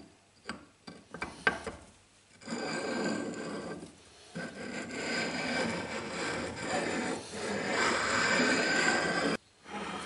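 A flat sharpening stone rubbed back and forth over the flat metal top of a lathe saddle, stoning off a burr left by old score marks. A few short knocks come first. The scraping rub starts about two seconds in, pauses briefly, then runs on and cuts off suddenly near the end.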